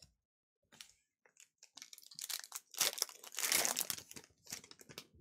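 Foil wrapper of a Panini Donruss basketball card pack crinkling as it is handled and torn open. The crinkling starts about two seconds in after a few light clicks, and is loudest in the middle.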